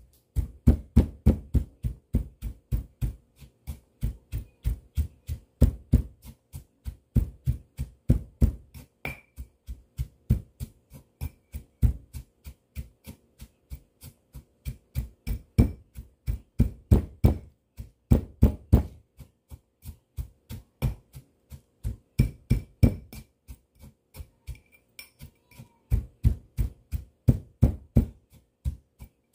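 Pestle pounding in a heavy stone mortar: a steady run of dull knocks, about three strokes a second with short pauses, as peppers, shrimp paste, sugar and salt are crushed into sambal.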